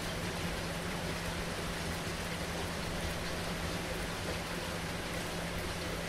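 Heavy rain falling steadily, an even hiss of many drops, with a steady low hum underneath.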